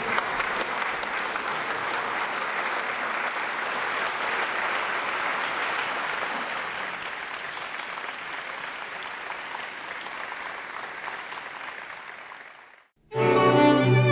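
Concert audience applauding steadily, the clapping fading out near the end. After a moment of silence a string quartet of violins and cello starts playing.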